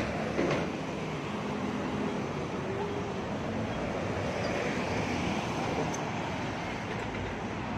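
Busy city street ambience: steady road traffic noise with indistinct talk from passers-by, and a short click just after the start.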